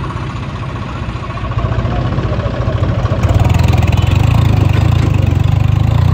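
Diesel tractor engine running close by, climbing in revs about halfway through and holding at higher revs.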